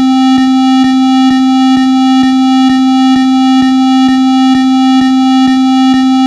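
Synthesized emergency alert tone for an earthquake warning: one steady, buzzy electronic note with many overtones, with a faint click repeating a little over twice a second.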